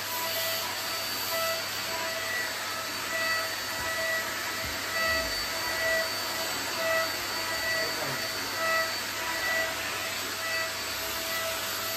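Canister vacuum cleaner running steadily, a rush of air with a steady whine, sucking up dust from a tiled floor.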